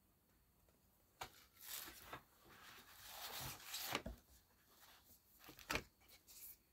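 Cardboard and paper sleeves of a vinyl LP being handled: quiet rustling and sliding, with a few light knocks and clicks, the sharpest about four seconds in.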